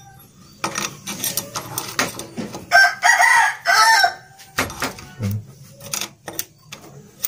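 A rooster crows once, about three seconds in, over scattered sharp metal clicks and taps.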